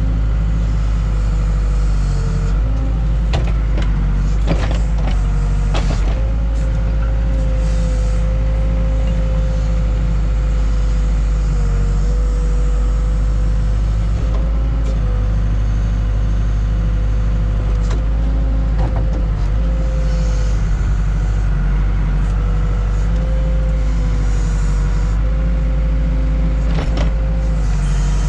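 Case 580K backhoe's diesel engine running steadily under working load, with a hydraulic whine that wavers in pitch as the controls are worked. Several sharp clanks of the bucket and linkage come through now and then.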